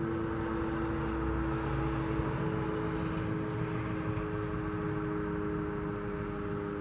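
Sterling M-10 outdoor warning siren sounding its wail, a steady tone held at a fairly even pitch and level.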